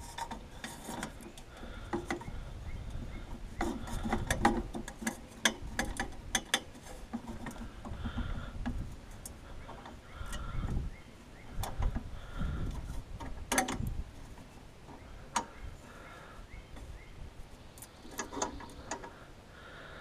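A hand wrench working a bolt on an aluminium cart frame: irregular metal clicks and clanks that come in clusters, with low rumbling knocks from handling.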